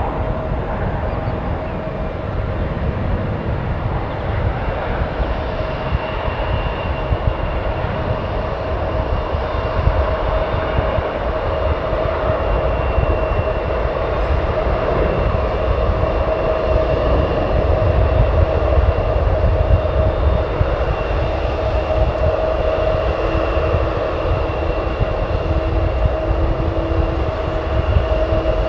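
Airbus A330-900neo's Rolls-Royce Trent 7000 turbofans at takeoff thrust: a continuous jet roar with a deep rumble and a steady whine, swelling a little past the middle.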